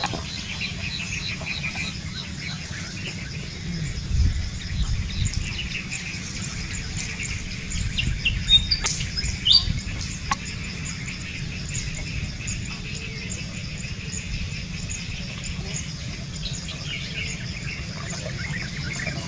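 Outdoor forest ambience of birds chirping in quick, evenly repeated notes, with a few louder sweeping calls about nine seconds in, over a steady low rumble.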